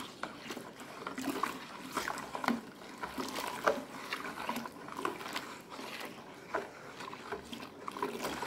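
Water pouring in a thin stream from a plastic jug into a plastic basin of foamy soap mix while a spatula stirs it, with small irregular splashing clicks.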